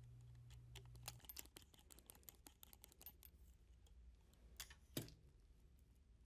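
Faint metallic clicks and taps of a small hand tool working the screws on a sewing machine attachment's metal spacers, with a sharper click about five seconds in.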